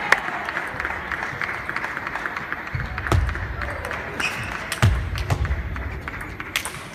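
Table tennis balls clicking off bats and tables in a large, echoing hall, irregular sharp clicks over a steady background of hall noise, with two dull thumps about three and five seconds in.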